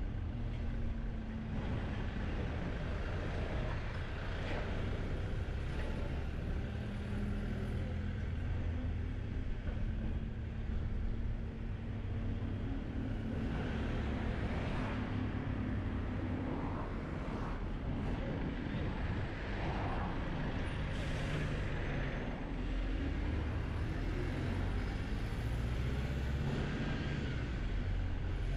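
Road vehicle driving through town traffic: a steady low engine drone with road noise, and a few brief hissy swells along the way.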